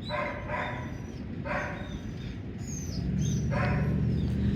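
A dog barking: about four short barks, two close together at the start, one about a second and a half in and one near the end. A low steady hum grows louder over the last second and a half.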